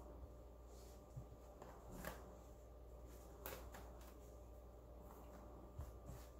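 Near silence with a handful of brief, soft handling sounds, light rustles and taps, from cloth drying towels being handled around cured pork loins.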